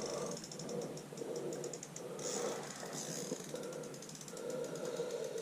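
Fishing reel clicking in quick, even runs as the line is worked, a mechanical ratchet-like ticking, with a faint steady hum underneath.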